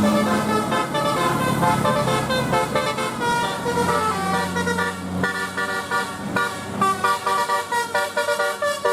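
Telolet bus horn playing a quick multi-note tune, the notes changing several times a second, with a bus engine running low underneath until about five seconds in.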